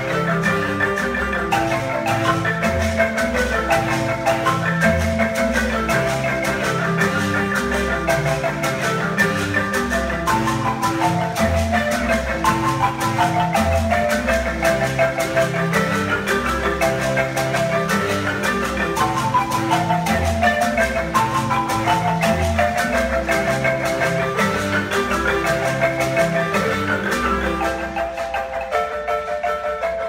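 Marimba ensemble playing a fast, interlocking piece on several wooden marimbas, with a bass marimba carrying a repeating low line. Runs of falling notes come twice in the middle, and the low bass drops out about two seconds before the end while the higher marimbas carry on.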